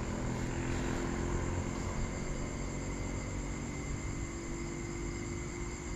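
Steady night-time background of insects chirring, with a low steady rumble underneath that fades after the first few seconds. There are no distinct events.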